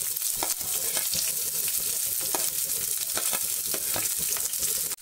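Sliced onions sizzling in hot mustard oil in a metal pan: a steady hiss scattered with crackles and clicks as they go into the oil.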